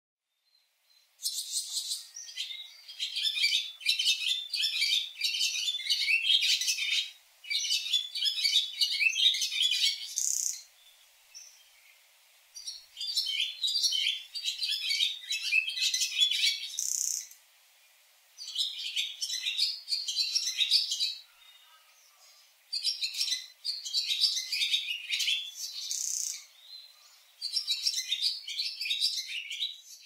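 Barn swallow singing: quick twittering warbled phrases in about six bouts with short pauses between them, some bouts ending in a brighter drawn-out high note.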